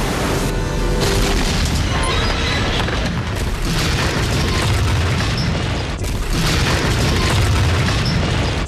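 Film sound effects of the Titanic's hull grinding along an iceberg: loud, heavy rumbling and crashing, then seawater bursting into the hold, with the sound shifting abruptly at each cut.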